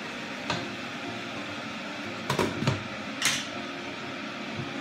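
A wooden spoon and a glass pot lid knocking and clinking against a cooking pot: a single click, a quick cluster of knocks and a brighter clatter, over a steady fan hum.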